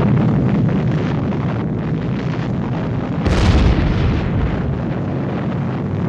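Long rolling rumble of a large explosion that begins suddenly and keeps going, swelling again about three and a half seconds in.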